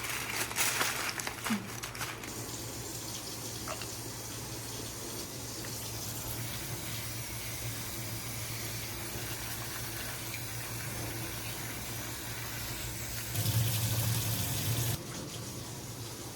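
Kitchen tap running steadily into a sink as green chillies and curry leaves are rinsed under it, with rustling handling in the first couple of seconds. The water gets louder for a moment about thirteen seconds in, then settles again.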